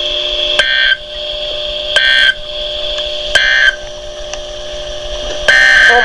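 A weather alert radio receiving an emergency alert: three short, shrill electronic data bursts about a second and a half apart, then a steady alert tone starting near the end. It is heard through a computer's speakers.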